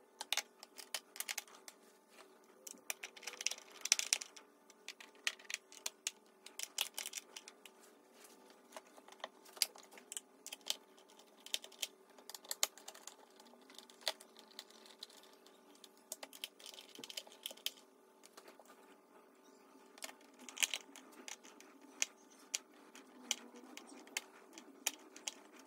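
Irregular small clicks and taps of hand tools and screws working the fasteners that join the upper and lower halves of a motorcycle's plastic air box, at a steady low level with a busier cluster about four seconds in.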